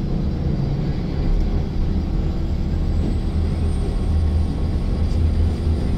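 Moving passenger train heard from inside the carriage: a steady low running noise.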